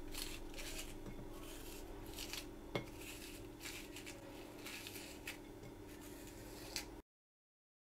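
Metal vegetable corer scraping out the inside of a zucchini, faint, with a soft scrape at each stroke and one sharp tick a little under three seconds in. The sound cuts to dead silence about a second before the end.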